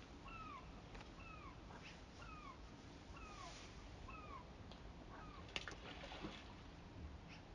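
A bird calling faintly over a quiet outdoor background, a steady series of short notes that each slide downward, about one every half second. The calls stop about two-thirds of the way through, followed by a couple of sharp clicks.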